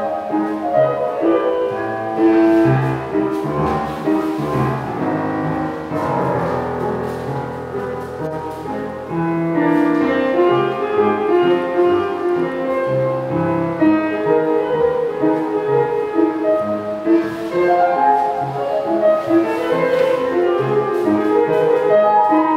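Piano music in a classical style, playing as accompaniment to a ballet barre exercise.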